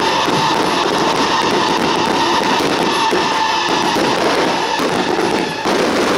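Loud music mixed with a string of firecrackers crackling; near the end the firecrackers stand out more.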